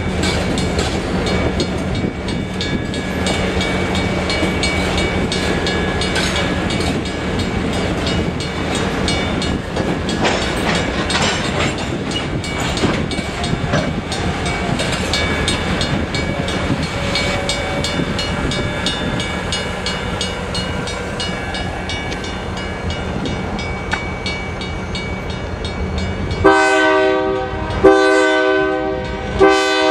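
Freight cars rolling slowly over the rails with a steady rumble and clatter of wheels. Near the end, a diesel locomotive's multi-note horn sounds three loud blasts, each about a second long.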